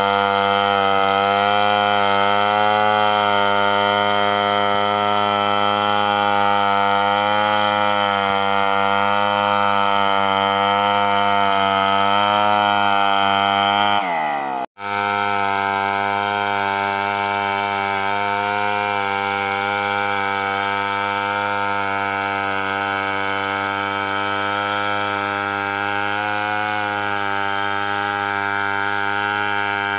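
Two-stroke chainsaw running at high revs under load, ripping lengthwise through a coconut log in freehand milling, with a slight waver in its pitch. About halfway through, the pitch falls and the sound breaks off for an instant, then the saw runs on steadily.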